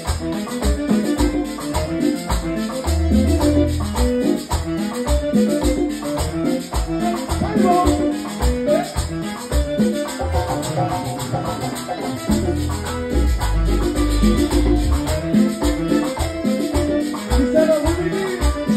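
Live salsa band playing, with congas and a quick, steady high percussion rhythm over a bass line.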